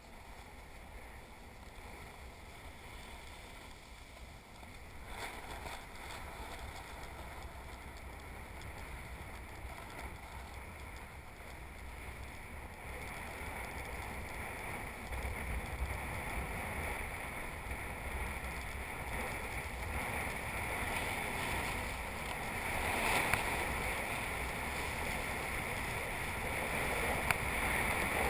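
Skis sliding and scraping over packed snow with wind rumbling on the microphone of a body-mounted camera, getting steadily louder as the skier picks up speed.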